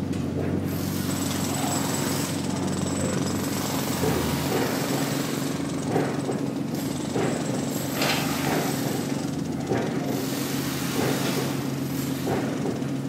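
Layered urban field recordings: a steady low machine hum under a dense mechanical noise, with irregular short clattering bursts every second or two.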